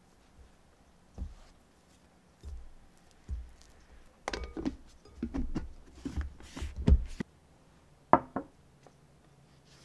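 Hands working an oiled ball of bread dough in a glass bowl: a few soft dull thumps, then a busier run of knocks and rubbing as the ball is flipped over. About a second later there is one sharp knock from a plastic bowl lid.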